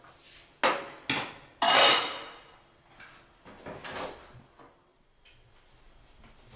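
Kitchen clatter: a pan and cupboard knocking and clanking several times. The loudest clank comes about a second and a half in, with a short ring, and softer knocks follow a couple of seconds later.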